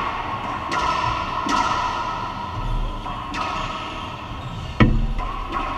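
Racquetball rally: about five sharp cracks of the ball off racquets and court walls, irregularly spaced, each ringing in the enclosed court, the loudest a little before the end.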